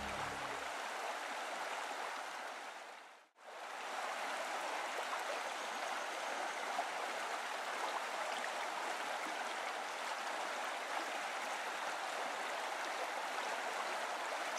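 Flowing river water: a steady rushing hiss that fades out briefly about three seconds in and then comes back.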